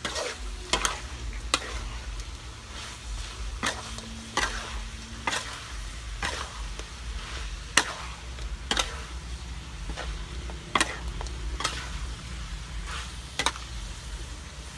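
Metal spatula scraping and clanking against a steel wok, about once a second, as chopped duck pieces stir-fry with a steady sizzle.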